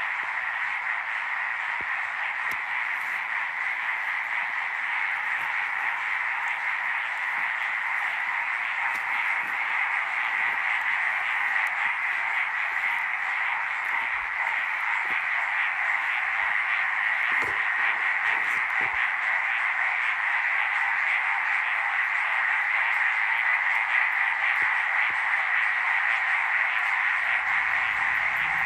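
Dense chorus of many frogs calling together after rain, one huge, continuous buzzing with no gaps. Such choruses are typical of breeding after a rain.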